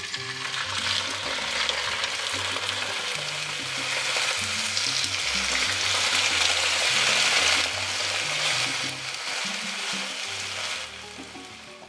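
Adobo-marinated basa fish fillets sizzling in hot oil in a nonstick frying pan. The hiss grows louder toward the middle and fades near the end.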